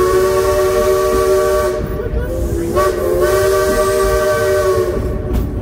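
Steam locomotive's whistle blowing two long blasts, several tones sounding together, the first ending about two seconds in and the second lasting about two seconds after a short gap. Under it the train's running rumble and a hiss.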